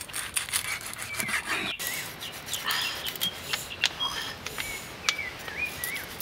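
A machete cutting crisp-skinned roast pork belly on a wooden chopping block: repeated sharp crunches and knocks as the blade breaks through the crackling and hits the wood. Short high chirps come and go behind it.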